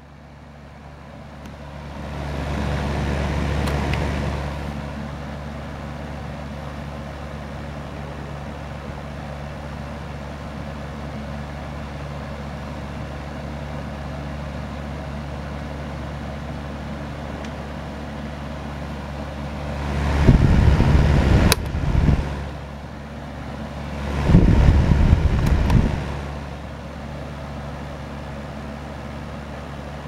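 Holmes Heat Director space heater's fan running with a steady low hum while the heater swivels side to side on its oscillating base. The sound swells over the first few seconds, and two louder bursts of noise come about twenty and twenty-four seconds in.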